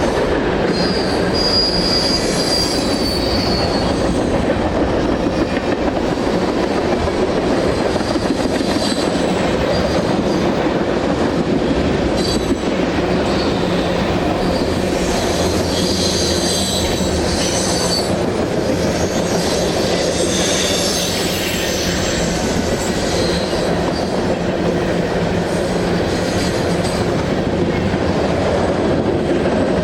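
Freight cars of a long train rolling past in a steady rumble, with high-pitched wheel squeal coming and going, strongest about a second in and again midway.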